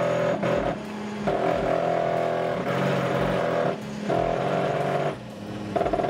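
Velleman Vertex K8400 3D printer's stepper motors driving the print head along its axes: a pitched motor whine in a series of moves of about a second each, separated by short pauses, the pitch changing from one move to the next.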